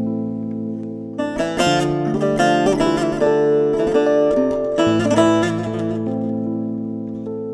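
Background instrumental music: a plucked string instrument picking out a melody, each note struck and left to ring.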